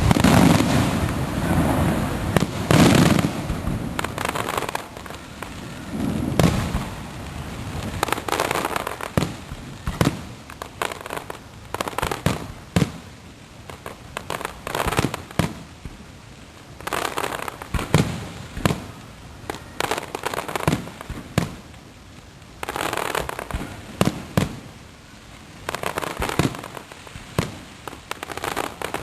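Aerial fireworks display: many sharp shell bursts and bangs with spells of crackling, coming in waves, with a dense cluster in the first few seconds and further flurries around the middle and near the end.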